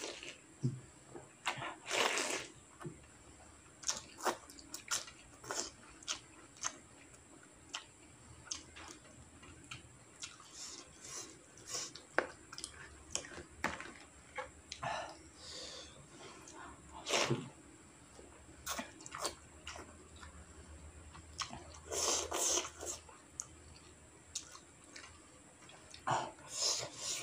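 Slurping and chewing instant noodles in soup broth, with scattered light clicks of a plastic spoon against a plastic tray. The longest slurps come about two seconds in and again near the end.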